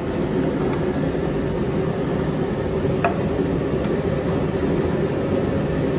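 Steady drone of a commercial kitchen's extraction hood fan running, with a single light tap about three seconds in.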